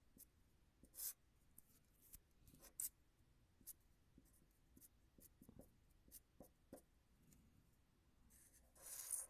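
Pen drawing on paper: faint short scratchy strokes, with a stronger stroke about a second in and a longer one near the end.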